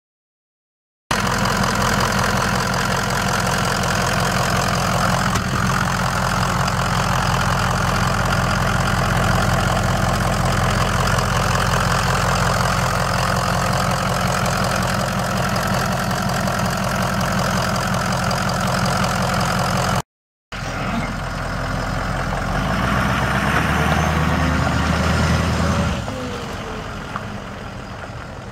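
The 6.0L V8 turbo-diesel of a 2004 Ford F350 Super Duty starts being heard about a second in, running steadily at close range with a dense diesel clatter. After a short break it runs again, its note rising and louder for a few seconds, then fainter near the end as the truck drives away.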